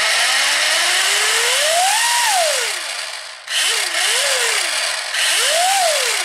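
Brushless motor of a toy-grade 1/8 scale RC car spinning the wheels in the air under throttle: a whine climbs to a peak about two seconds in and falls away, then three shorter throttle blips rise and fall, over a loud rushing noise from the drivetrain. The gears are loud enough that the owner fears they will break.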